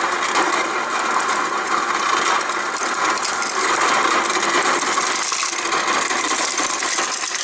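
Whirlpool refrigerator door dispenser running on its crushed-ice setting: the auger motor and crusher grinding and rattling steadily as crushed ice pours into a glass.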